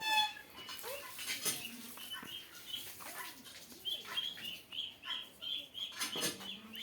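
Small farm birds chirping in short, high, quickly repeated notes, quickest over the second half, with a couple of brief bursts of wing flapping.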